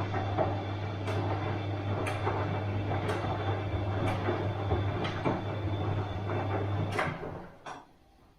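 Bosch washing machine running: a steady motor hum with a short knock about once a second as the drum turns. About seven seconds in, the motor winds down and stops.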